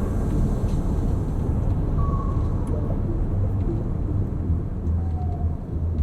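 Steady low road rumble inside the cabin of a 2020 Toyota Highlander Hybrid being driven, with no music playing.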